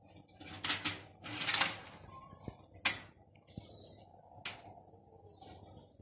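Slow loris eating soft fruit up close: a few irregular wet chewing and smacking noises as it bites into banana and tomato.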